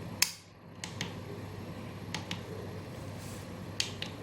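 A few short, sharp clicks and taps over a low steady room hum, the loudest just after the start and the others in close pairs.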